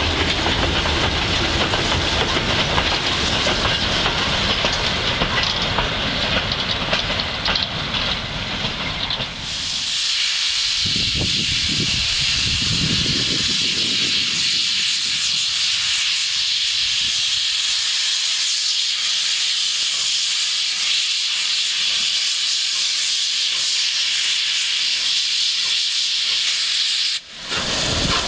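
Victorian Railways J class 2-8-0 steam locomotive J541 running past with a train of goods wagons, a broad steady rumble. Then a loud, steady hiss of steam venting from the standing locomotive, which breaks off briefly near the end.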